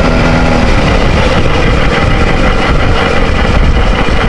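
Benelli TNT 300's parallel-twin engine running steadily through an SC Project exhaust while the bike is ridden, heard from the rider's seat. It is loud, with a deep note the rider likens to a four-cylinder.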